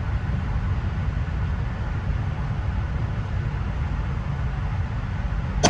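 Steady low rumbling noise, then a single rifle shot near the end.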